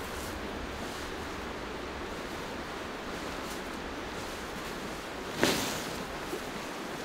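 Steady rush of river water, with a sudden loud swish of a waterproof tarp being flapped out about five seconds in, followed by a faint click.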